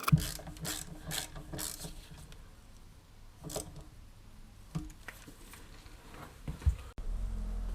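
Hand tools clicking and knocking during work on a car's rear axle: irregular sharp clicks, quicker in the first couple of seconds, with a louder knock near the end, then an abrupt change to a steady low hum.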